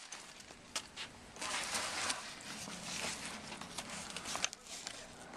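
Nylon backpack fabric rustling and scraping as hands dig into a pocket and pull out a small trigger-reset tool, with a few light clicks of handling.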